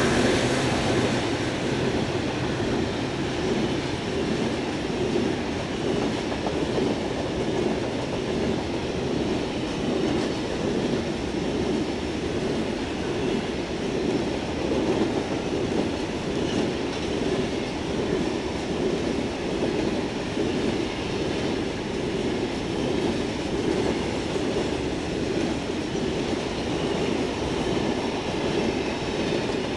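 Grain hopper wagons of a freight train rolling past, a steady rumble of steel wheels on the rails.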